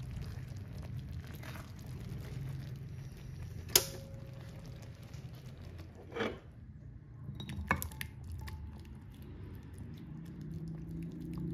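Kitchen utensil sounds over a low steady rumble: one sharp clink about a third of the way in, then a softer knock and a few light clicks. Near the end, a thick creamy sauce of vegetables, ham and quail eggs is ladled into a bowl with soft wet sounds.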